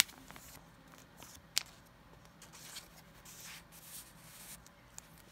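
A Yu-Gi-Oh trading card being handled and slid into a blue matte plastic card sleeve: soft rubbing and sliding of card against plastic, with a sharp click about a second and a half in.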